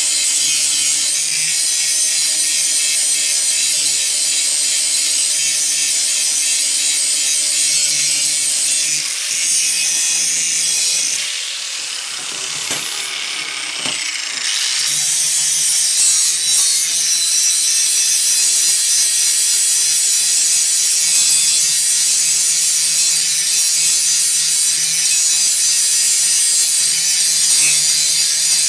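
Angle grinder grinding down welds on a steel jig: a steady, high-pitched grinding over the motor's hum. About halfway through it eases off for a few seconds, then bites in again.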